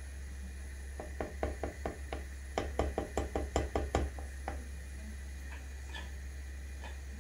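Spatula knocking against the sides and rim of a cooking pot full of thick soup: a run of taps, then a quicker, louder run of about nine, then a few single taps.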